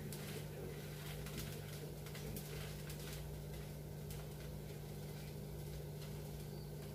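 Faint scraping and light taps of a steel spoon spreading masala filling over a dosa in a pan, over a steady low hum.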